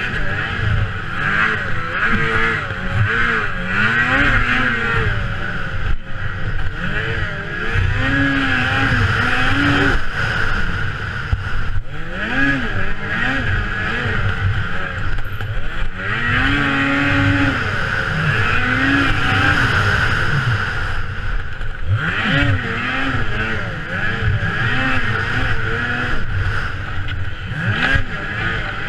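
Racing snowmobile engine running hard, its pitch rising and falling again and again every few seconds as the rider works the throttle through the turns, heard from a helmet-mounted camera.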